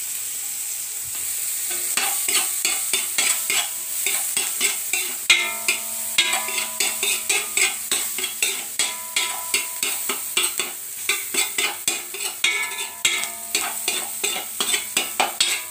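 Chopped garlic sizzling in melted butter in a wok, a steady hiss at first. From about two seconds in, a spatula stirs and scrapes the pan in quick strokes, two or three a second, and the pan rings between them.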